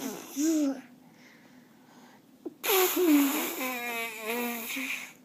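A toddler's voice making playful noises: a short pitched call at the start, then about two and a half seconds later a longer, louder, breathy vocal sound with a wavering trill in the middle.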